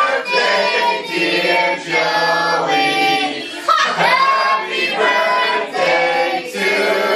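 Several voices singing together in long held, sung phrases.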